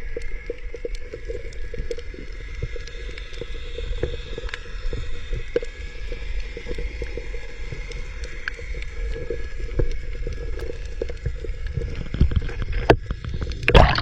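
Underwater sound picked up by a diving camera: a steady low drone with faint steady tones over constant crackling clicks. It is the strange underwater sound the spearfisher heard clearly, which stopped when he surfaced. Louder knocks and thuds come near the end.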